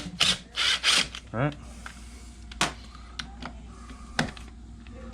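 A few sharp, isolated clicks and knocks of hand tools and metal parts being handled, over a low steady hum.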